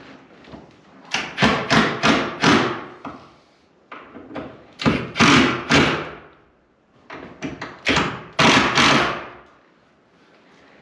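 Sharp knocks and thuds on a wooden door as it is worked into its frame while being hung. The blows come in three bursts of two to five, about three a second.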